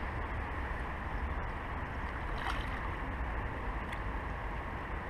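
Wind rumbling on the microphone over a steady outdoor hiss, with a short burst of clicks about two and a half seconds in.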